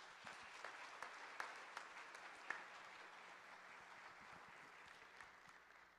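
Congregation applauding, faint and dying away toward the end.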